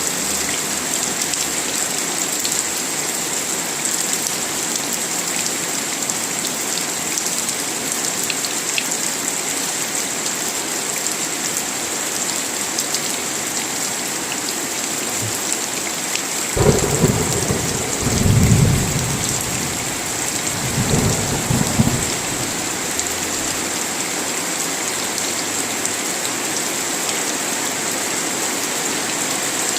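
Steady heavy rain, with a sudden low thunder rumble a little past the middle that swells, rolls on for about five seconds and dies away.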